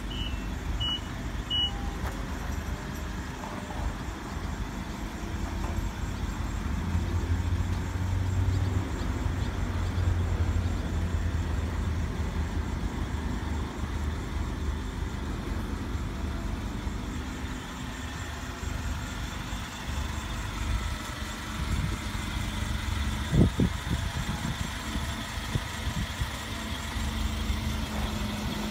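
Nissan forklift running as it is driven with a load, its reversing beeper sounding in the first second or so and then stopping. The engine grows louder for a few seconds partway through, and a single knock sounds late on.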